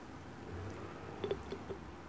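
Close-up eating sounds: a few short, soft clicks and squishes a little past the middle, as a spoonful of rice and fried milkfish is scooped up and taken into the mouth.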